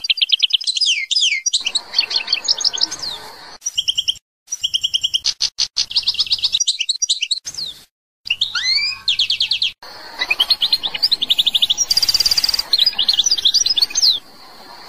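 An Algerian goldfinch singing: fast runs of repeated high notes, trills and twittering glides, broken by a few abrupt silences. The song stops about a second before the end, leaving a faint steady hiss.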